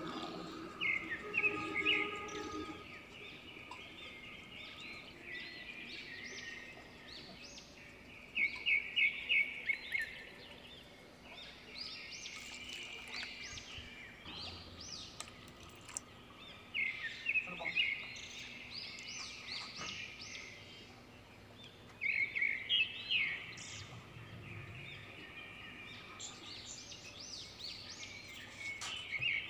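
A small songbird singing short phrases of quick, high chirps, repeated every few seconds, over faint steady background noise.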